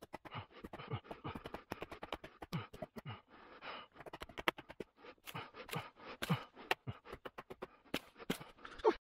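Traditional kukri chopping a hard, dead branch: a quick, irregular run of knocks as the blade strikes the wood, with panting from the effort. It stops suddenly near the end.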